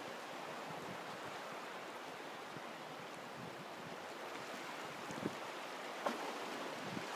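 Surf washing over a rocky shore, a steady rush of water. Two short taps sound about five and six seconds in.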